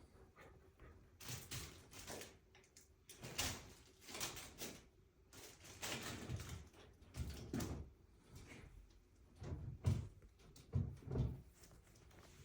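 A sleeping prairie dog snoring: a run of short, noisy snores about every second or two, uneven in spacing and strength.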